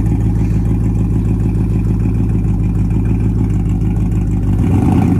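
Lifted Chevy Silverado Z71 pickup's engine running steadily at low revs as the truck crawls slowly over rough, muddy ground, the note rising a little near the end.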